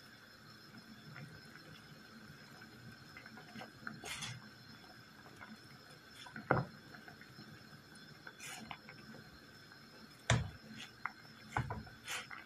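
Herbal drink of lemon, parsley, garlic and ginger boiling in a pot while a wooden spatula stirs it, with a faint steady bubbling and a few sharp knocks of the spatula against the pot, the loudest about ten seconds in.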